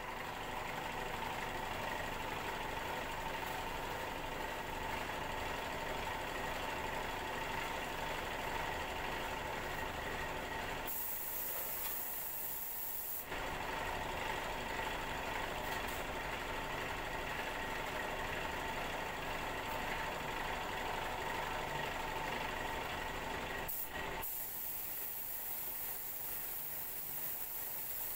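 Steady motor hum, with a paint spray gun hissing for about two seconds near the middle and again from a few seconds before the end.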